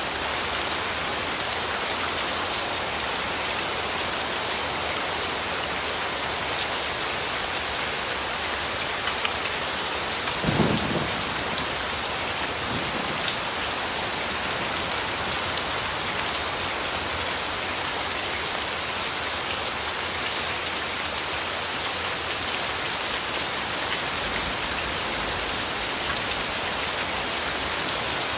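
Steady rain falling on a surface, an even hiss of drops. About ten seconds in a short low clap of thunder rises out of it, with a fainter rumble a couple of seconds later.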